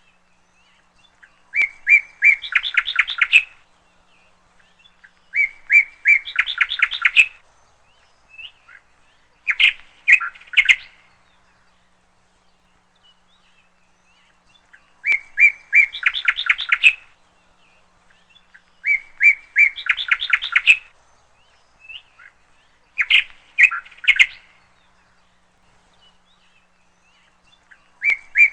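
A bird singing the same phrase over and over, about seven times, with pauses of a few seconds between. Each phrase is a couple of short clear notes followed by a fast rattling run of notes.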